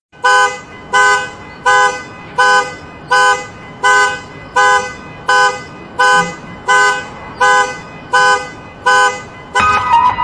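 Car alarm blaring the car's horn in short, evenly spaced honks, about one and a half a second, each a chord of several pitches. Near the end, music built on the same horn-like tones comes in.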